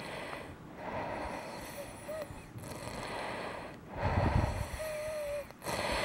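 Close-up laboured breathing of a person with cystic fibrosis: slow breaths in and out with a crackly rattle from thick mucus in the lungs, still there after an hour of vest airway-clearance therapy. A short whistling note sounds at the end of a breath, about two seconds in and again near the end.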